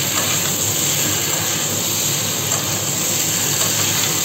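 Boiled baby potatoes and spice paste sizzling in a hot kadai as they are stirred and fried, a steady hiss.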